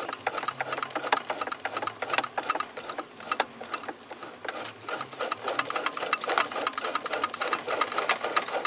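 TV16 bench lathe with its chuck turned by hand to cut an M6 thread with a tap into a duralumin adapter: fast, irregular clicking and rattling of the machine and tap.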